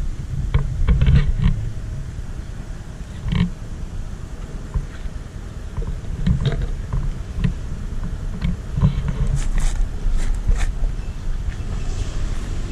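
A cat eating dry kibble right by the microphone: irregular, short crunching clicks over a low rumble.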